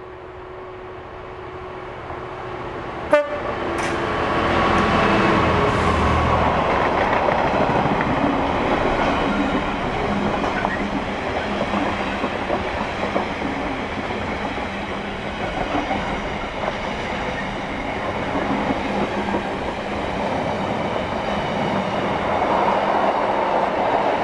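Diesel-hauled intermodal container freight train approaching and passing close by: the locomotive's sound builds over the first few seconds, then the steady rumble and clatter of the container wagons' wheels over the rail joints. A single sharp crack about three seconds in.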